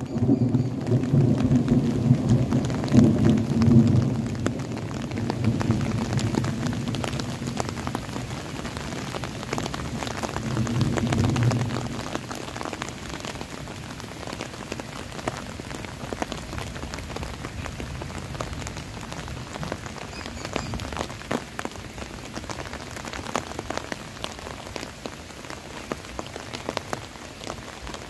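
Steady rain with the patter of drops, under a low rolling rumble of thunder that is loudest in the first few seconds, swells again about ten seconds in, then dies away, leaving only the rain.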